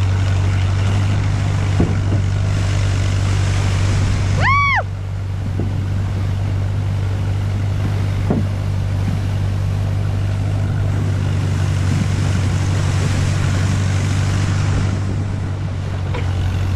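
Boat hull sliding over snow while towed behind a tractor: a steady rumble and hiss over a constant low engine hum. About four and a half seconds in, a short high squeal rises and falls.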